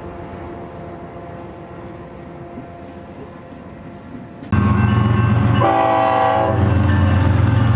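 A train's rumble fading away, then a sudden cut to a much louder approaching diesel freight train. Its low engine hum is steady, and a single horn blast of about a second sounds about five and a half seconds in.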